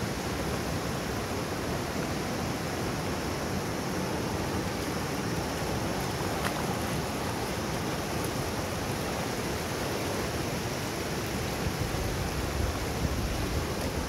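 Fast mountain river rushing over rocks in rapids, a steady full hiss of flowing water, with a few low thumps near the end.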